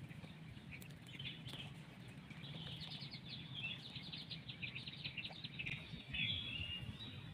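Wild birds calling in rapid runs of short high chirps, with a short whistled note about six seconds in, over a steady low hum.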